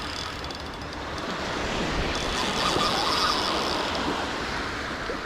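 Surf washing on the beach, swelling a little in the middle, with some wind on the microphone.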